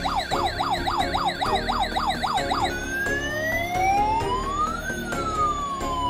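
Toy fire truck's electronic siren: a fast yelp, about four up-and-down sweeps a second, switching nearly halfway through to a slow wail that rises to a peak and then falls. Background music with a steady beat plays underneath.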